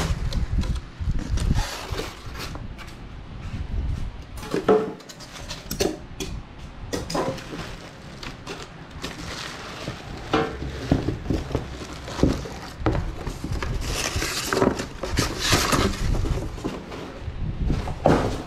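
Metal parts of a pellet grill's folding front shelf being handled and unpacked: irregular clanks, clinks and knocks, with a denser, noisier stretch of handling about three-quarters of the way through.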